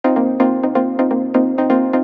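Electronic background music: a fast, even run of plucked synth notes, several a second.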